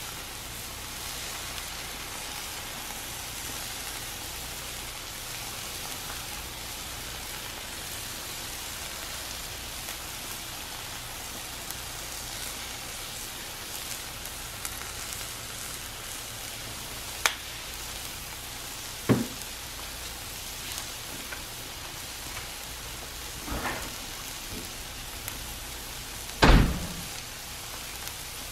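Cubed beaver meat sizzling on a hot flat-top griddle, a steady frying hiss. A few sharp knocks come in the second half, the loudest near the end.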